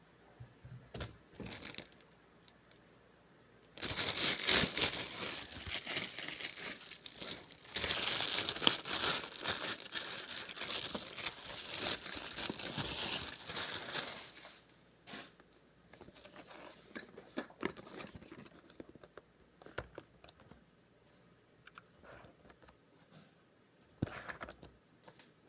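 Packaging being torn open and crinkled by hand: a few small handling noises, then about ten seconds of steady tearing and rustling, then scattered light rustles and clicks as the pieces are handled.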